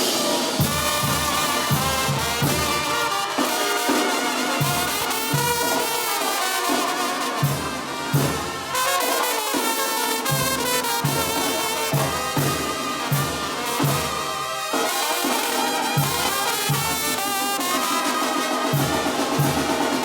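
Banda (Mexican brass band) playing live, an instrumental passage: trumpets and trombones carry the melody over a steady beat of low bass notes and drums.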